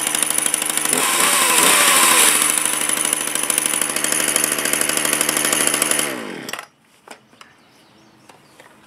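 Ryobi 16-inch two-stroke gas chainsaw running, briefly revved up about a second in and then settling back to idle. About six seconds in it is shut off and the engine winds down to a stop, followed by a couple of light knocks.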